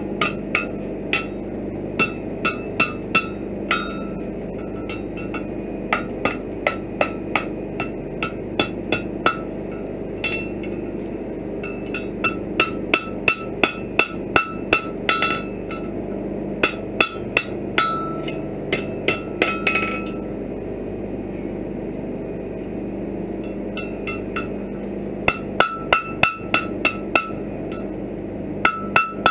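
Blacksmith's hand hammer striking hot iron on an anvil while forging a fire poker: runs of quick blows, about two to three a second, each with a bright metallic ring. The blows stop for a few seconds past the middle, then start again, over a steady low hum.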